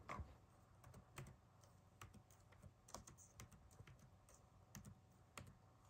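Faint typing on a computer keyboard: irregular single keystrokes as a name is typed into a web form.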